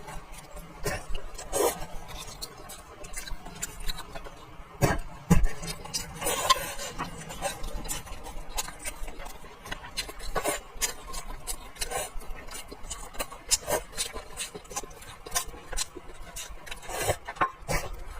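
Eating sounds from a meal of braised fish: chewing and irregular small clicks and taps, with a heavier knock about five seconds in.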